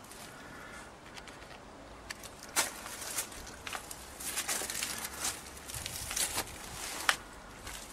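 Irregular crunching and rustling, like footsteps on dry leaves and gritty ground, starting about two seconds in, with two sharper crunches standing out.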